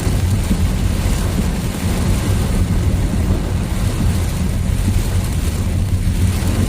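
Car driving slowly through a heavy rainstorm, heard from inside: a steady rush of rain and wind over the car body with a low rumble from the road and engine.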